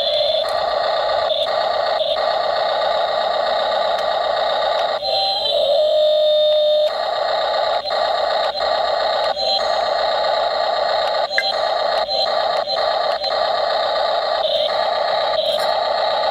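1:16 scale Double E RC excavator running, a steady electric whine with short clicks as its motors start and stop, changing pitch briefly about five seconds in.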